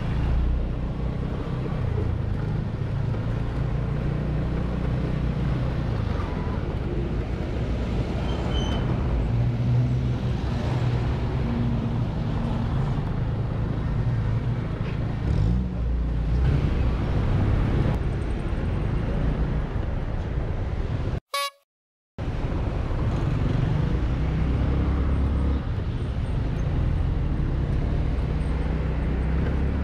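149cc Kavan S scooter engine running at low speed through traffic, with road noise and nearby cars. The sound cuts out completely for about a second, about 21 seconds in.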